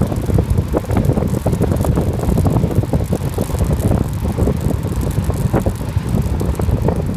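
Wind rushing over the microphone of a phone carried on a road bike at speed: a loud, uneven rumble, with scattered small clicks and rattles from the ride.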